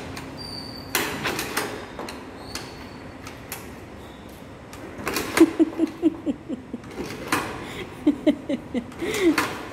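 Honda Activa scooter's single-cylinder engine being kick-started: about halfway in, and again near the end, a kick turns the engine over in a quick run of pulses, and it does not catch. The battery is flat, so the self-start does not work and the scooter has to be kicked many times before it starts.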